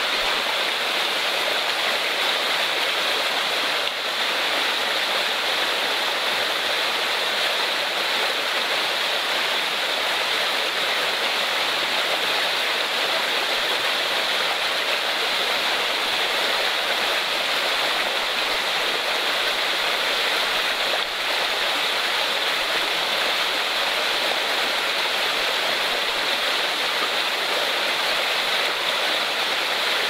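Small forest stream running over rocks and little cascades into pools: a steady rush of water.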